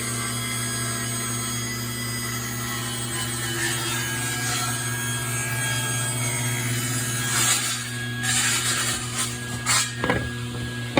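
Table saw running steadily with its motor hum. In the last few seconds the blade cuts through a board in several louder surges.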